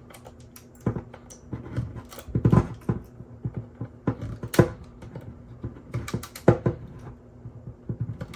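3D-printed plastic support material being pried and snapped off a printed helmet piece: irregular small clicks, cracks and scraping of plastic, with a few louder sharp snaps.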